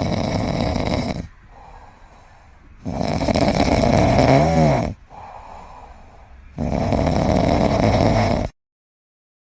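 A pet snoring: three long rasping snores, each followed by a quieter breath, the middle one with a whistling note that rises and falls. The sound cuts off suddenly near the end.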